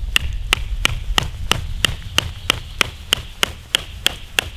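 Large bushcraft knife striking into a wooden stick in quick, even strokes, about three a second. Each knock has a short metallic ring from the blade.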